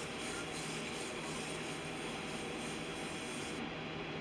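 Airbrush spraying paint in a steady hiss that cuts off about three and a half seconds in as the trigger is released, with a steady low hum under it.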